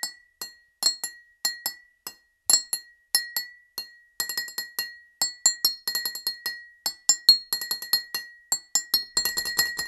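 Glass milk bottles clinking together: many sharp, ringing clinks at uneven spacing, growing much busier about four seconds in, over a steady high ringing tone.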